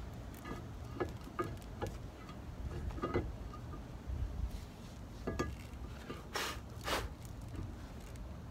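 Scattered metal clicks and light clinks as a Brembo brake caliper is handled and lifted against the brake rotor, with two louder short scraping noises a little past halfway, over a steady low rumble.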